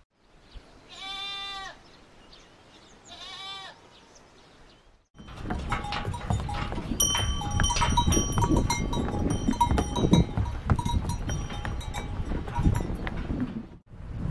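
Two short bleating calls, then a train of pack animals crossing a steel suspension bridge: many bells on the animals ringing, with hooves clattering on the bridge deck. The sound cuts in sharply about five seconds in and cuts off near the end.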